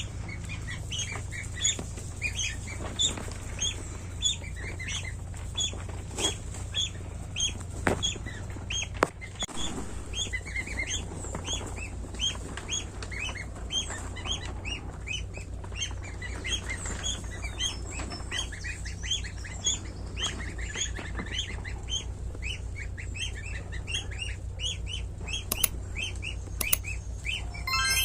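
A group of week-old goslings peeping continuously, many short high calls overlapping one another. A steady low hum runs underneath, and a few sharp clicks break through.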